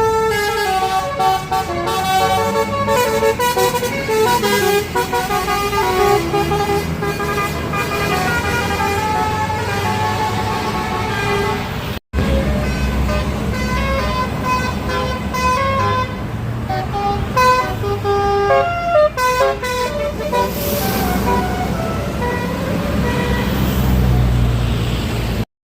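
Basuri multi-tone air horn on a tour bus playing a telolet melody, one steady note after another, over the bus engine running. The sound breaks off for an instant about halfway through and starts again.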